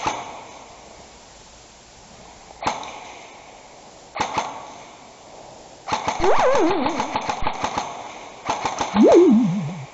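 Airsoft guns firing: two single shots, then two rapid bursts of fire later on. During each burst a cry rises sharply and then falls away in wavering steps.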